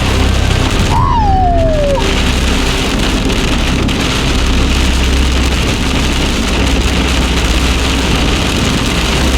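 Heavy rain and high wind from a severe thunderstorm's core beating on a vehicle, a loud, steady rush. About a second in, a single tone falls in pitch for about a second.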